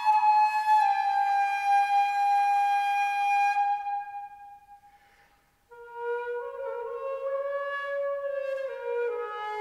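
Eight-keyed cocus-wood flute (Clementi & Co 'Nicholson improved' model, ca 1830) playing a slow Scottish air unaccompanied. A long held note fades away into the room's reverberation a few seconds in. After a brief pause, a new phrase starts in the flute's low register, moving stepwise between a few notes.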